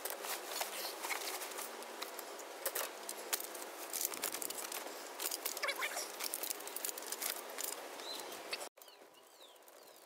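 Beach gear being loaded into a folding wagon: rustling bags and fabric with many light knocks and clatters of chair frames and other items. The sound drops off abruptly near the end to a faint background.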